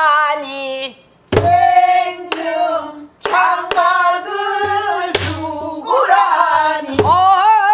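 Korean Namdo folk-song singing: long, wavering held notes, punctuated by about six sharp drum strokes with a low thump.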